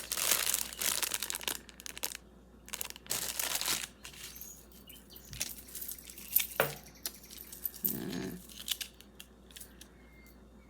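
Plastic packaging crinkling and tearing in bursts as a necklace is unwrapped by hand. A sharp click comes about six and a half seconds in, then quieter rustling.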